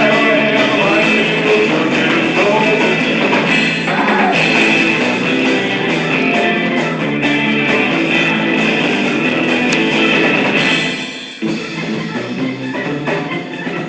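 Instrumental break of a song, with guitar carrying the music between sung verses; the music drops in loudness about 11 seconds in and carries on more quietly.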